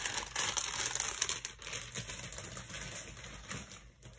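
Plastic packaging crinkling and crackling as it is handled, with many small clicks, fading out toward the end.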